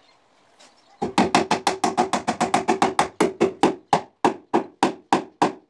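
Rapid hammer blows on a plywood kitchen chimney hood, about five a second, starting about a second in and spacing out slightly near the end.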